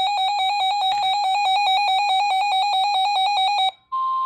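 An electronic alert alarm beeps rapidly on one shrill tone, about eight beeps a second, then cuts off near the end. After it, the steady NOAA Weather Radio warning alarm tone begins, with faint radio hiss under it.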